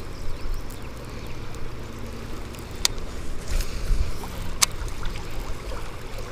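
River water moving around a fishing kayak, with two sharp clicks a little under two seconds apart.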